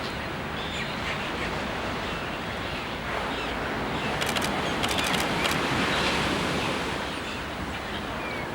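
Sea surf washing in a steady rush that swells and falls back around the middle, with a quick run of sharp clicks about four to five seconds in.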